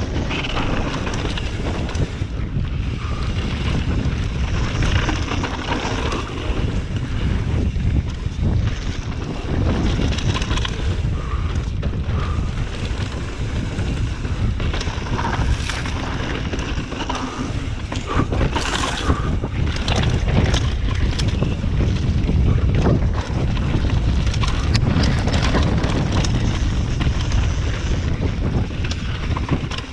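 Mountain bike riding fast down a dry dirt singletrack: wind buffeting the action camera's microphone as a steady low rumble, with tyres crunching over dirt and rock and the bike rattling in scattered clicks.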